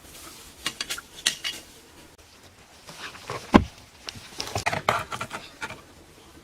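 Hard objects clicking and clattering against each other, with one heavier knock about halfway through and a quick run of clatter after it.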